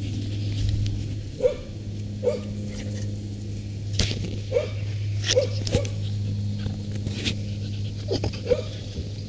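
Shetland sheepdog giving short, high whimpering yips, about seven in all at uneven intervals: a dog wanting to get at rabbits to sniff them. A steady low hum runs underneath.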